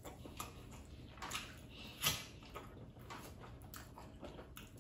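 Quiet eating sounds of amala with okra soup eaten by hand: scattered soft mouth smacks and clicks of chewing and finger-licking, the loudest about two seconds in.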